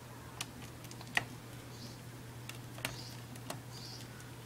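Sparse light clicks and taps, about half a dozen, from a small screwdriver and tiny screws on the plastic base of a Dell Studio XPS 1640 laptop as the palm-rest screws are taken out. The sharpest click comes about a second in, over a faint steady hum.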